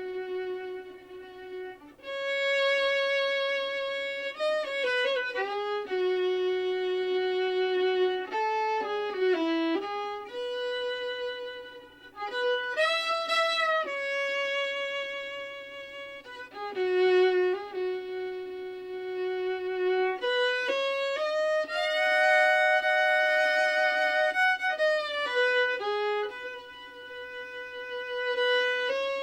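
Background music: a solo violin playing a slow melody of long held notes with slides between them.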